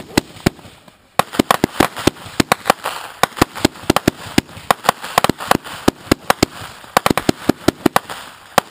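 Consumer firework cake firing a barrage: a rapid string of sharp bangs, about three or four a second, with a crackling hiss between them. It is sparser for the first second, then picks up and stays dense.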